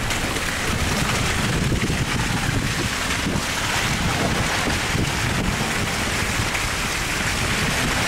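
Blizzard wind buffeting the camera microphone: a steady rushing noise with a heavy, uneven low rumble.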